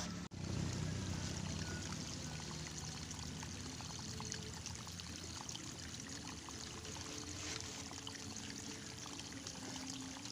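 Water running steadily, pouring or flowing, with a low hum underneath.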